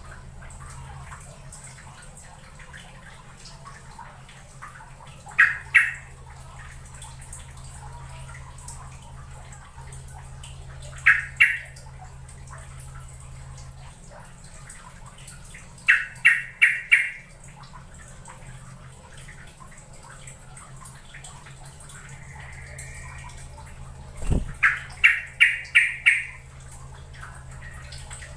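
Yellow-vented bulbul (trucukan) calling in short bursts of quick, bubbly notes: two, then two, then four, then five near the end, spaced several seconds apart, over a steady low hum.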